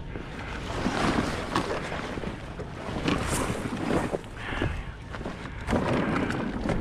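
Wind buffeting the microphone, with a few scattered knocks and clatters of scrap being handled.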